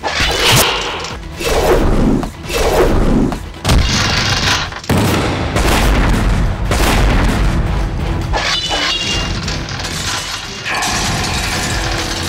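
Action-film trailer soundtrack: dramatic music layered with hit effects and explosion booms, with a deep rumble through the second half.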